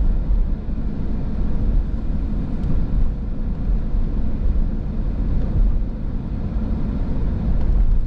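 Steady low rumble of a car driving, heard from inside the cabin: engine and tyres on a wet road.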